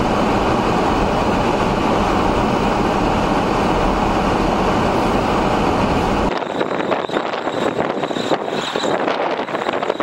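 Blizzard wind blowing hard across the microphone as a steady, loud rumble and rush. About six seconds in it changes abruptly to a thinner, gustier wind hiss with less rumble.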